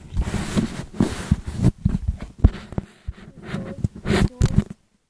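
Phone microphone handling noise: rubbing and scraping against the mic with irregular knocks and thumps as the phone is moved about. It cuts off suddenly near the end.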